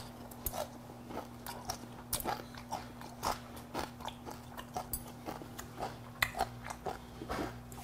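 A person chewing a crunchy mouthful of food: irregular crisp crunches, a few a second, over a steady low electrical hum.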